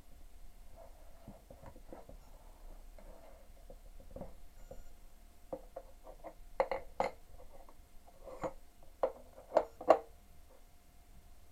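Scattered light clicks and knocks, with a cluster of sharper, louder knocks in the second half, about six in all.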